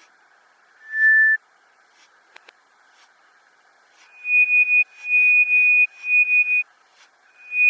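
Nokia 107 ringtone played in reverse: one single-pitched beep about a second in that swells up and cuts off sharply. After a pause, a repeating run of higher beeps starts, each swelling and stopping abruptly, over a faint hiss.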